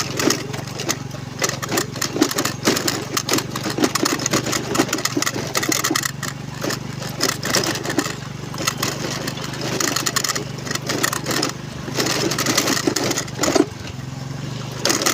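Honda Navi's small single-cylinder engine running steadily under load, with frequent knocks, rattles and buffeting over it as the bike rides a rough track.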